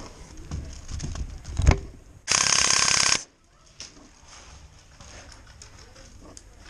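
A few low thumps, then an airsoft electric rifle with a dual sector gearbox firing a rapid full-auto burst of about a second that cuts off suddenly.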